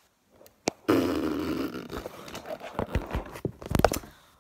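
Handling noise from a phone being picked up and moved around: rubbing and scraping over the microphone with a few clicks, starting about a second in after a moment of near silence.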